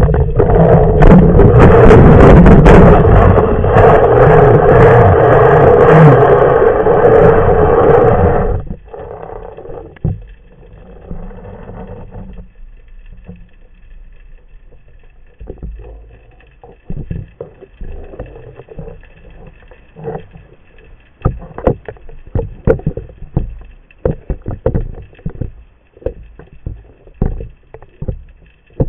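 Underwater noise picked up by a speargun-mounted camera: a loud water rush for about the first eight seconds that stops abruptly, then scattered knocks and clicks as the gun and shooting line are handled just below the surface.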